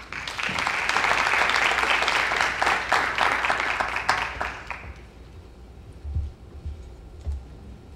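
Applause from a small gathering, a dense patter of clapping that dies away after about five seconds. A few low thumps follow near the end.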